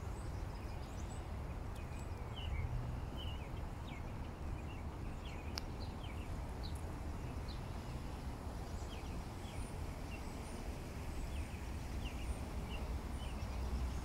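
Songbirds chirping: many short, high calls, one after another, over a steady low background rumble.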